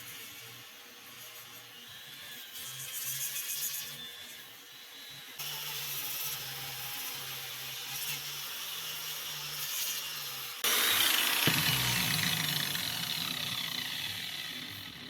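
Angle grinder abrading and polishing stone, heard as a harsh rubbing noise. It comes in three spliced sections whose level jumps abruptly, with the loudest near the end.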